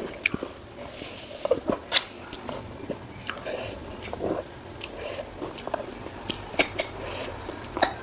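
Close-miked eating sounds of a person biting and chewing food, with frequent sharp wet mouth clicks and smacks at an irregular pace.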